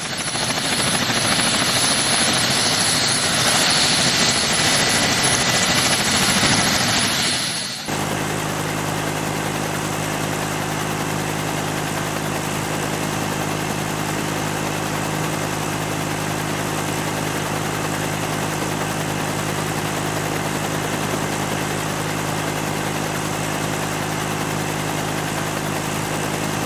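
Helicopter running with rotors turning: a loud rushing noise for the first eight seconds, then an abrupt change to a steady, slightly quieter engine-and-rotor drone with a low hum.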